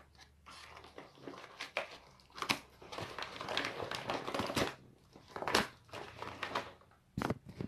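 Yellow padded paper mailer crinkling and rustling as it is cut open with scissors and handled, with scattered sharp crackles and snips.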